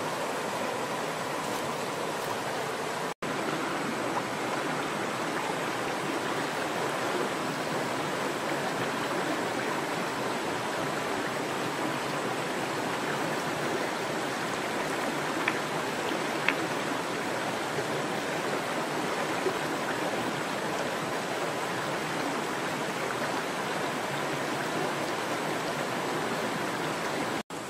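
Shallow rocky stream running over stones, a steady rush of water. It breaks off for an instant about three seconds in and again near the end, and a couple of faint clicks sound midway.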